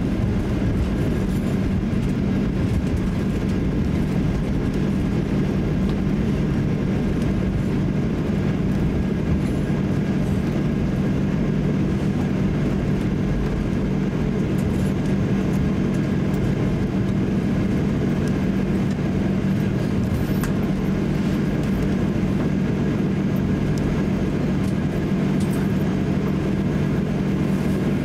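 Steady cabin noise of a Boeing 737-800 rolling along the ground after landing, its CFM56 engines at idle, with a steady low hum through it.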